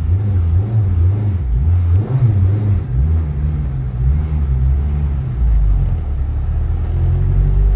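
Turbocharged Honda Civic's K24 four-cylinder engine running, its pitch rising and falling, getting louder toward the end.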